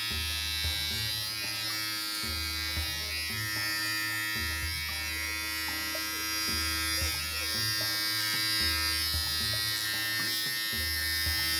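Cordless electric pet hair clipper running steadily as its blade cuts through a Maltese's curly coat.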